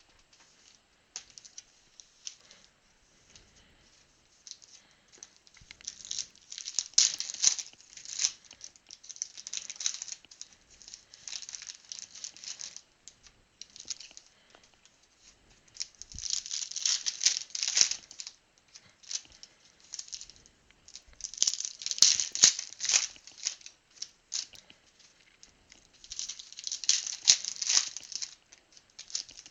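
Trading card pack wrappers being torn open and crinkled by hand, in repeated crackly bursts every few seconds, with cards and wrappers shuffled in between.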